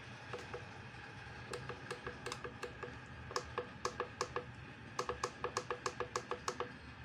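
Ultrasonic cleaner's control buttons beeping as they are pressed repeatedly, a run of short identical beeps that come quicker and closer together from about halfway on.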